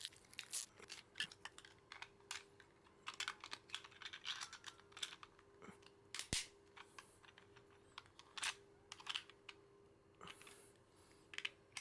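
Small hard plastic capsule-toy parts being handled and clicked together: irregular light clicks, taps and rattles.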